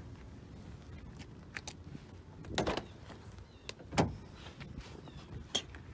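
Car door being opened: a latch clack about two and a half seconds in and a knock about four seconds in, among a few lighter clicks.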